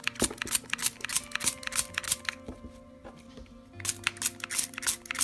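Small spray bottle misting water onto a doll's rooted hair in rapid short squirts, several a second. The spraying pauses for over a second about halfway through, then starts again near the end.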